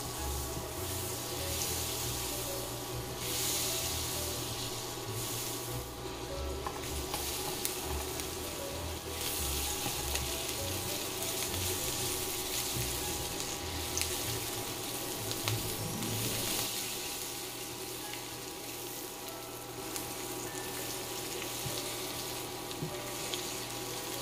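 Garlic cloves sizzling as they fry in butter and vegetable oil in a nonstick pan, stirred with a silicone spatula. The hiss swells and eases but never stops.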